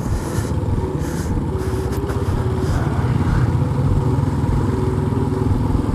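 Motorcycle engine running steadily while riding, heard from on the bike, with an even low drone and a few brief bursts of wind hiss.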